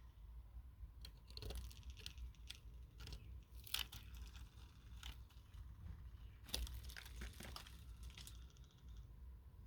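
Termites: faint, irregular crackling and sharp clicks, coming in scattered clusters of ticks over a low rumble.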